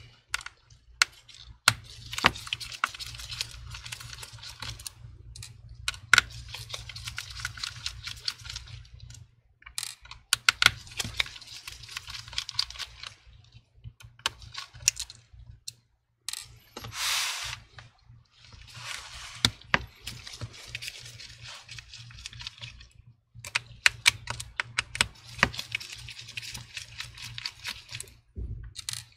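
A T8 Torx screwdriver backing out the display hinge screws of a MacBook Pro A1502: stretches of rapid fine clicking a few seconds long, with sharp clicks between them as the tool meets the aluminium case. A short hiss about seventeen seconds in.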